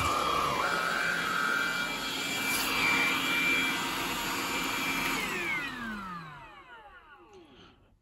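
John Lewis JL Cordless Stick 14.4 V vacuum cleaner running, with a steady motor whine, rushing air and a wavering whistle in the first couple of seconds. About five seconds in it is switched off and the motor spins down, its whine falling in pitch and fading out over about two seconds.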